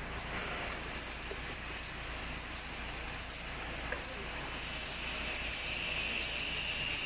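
Steady hum and hiss of running corrugated-carton machinery, with a high whine that grows stronger past the middle. A single small click comes near the middle.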